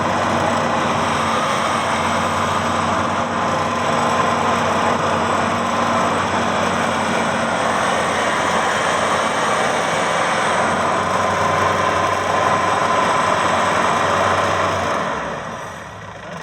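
Maxxi Bimo 102 combine harvester's engine and machinery running steadily at a constant pitch. Near the end the sound drops off sharply and goes much quieter.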